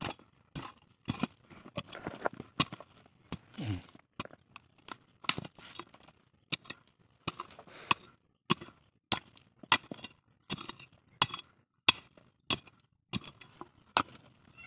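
A short-handled digging hoe chopping into dry, stony soil, repeated sharp strikes about two a second.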